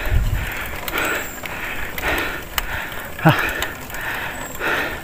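Cyclist breathing hard and rhythmically, about one heavy breath a second, from the effort of pedalling a mountain bike up a steep climb. A brief sound dropping in pitch comes a little past three seconds in.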